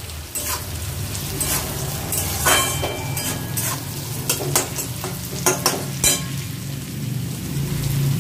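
Spatula stirring and scraping against a metal kadai while chopped carrots, green beans, cashews and raisins fry in oil and ghee, with a steady sizzle and sharp scrapes against the pan about once a second.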